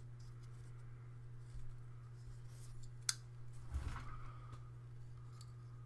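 Faint handling of a folding tanto knife with wooden scales and metal parts, with one sharp click about three seconds in, over a steady low hum.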